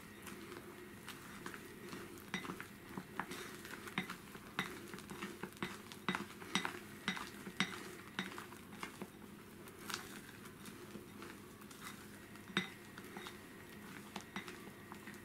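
Plastic spatula folding thick chocolate sponge batter in a glass bowl, clicking and scraping against the glass in short irregular knocks about once or twice a second. The knocks are thickest in the first half, with a couple of sharper ones later.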